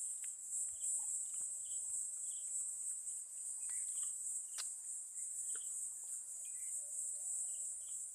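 Steady high-pitched drone of an insect chorus, with faint short chirps and a few soft clicks over it.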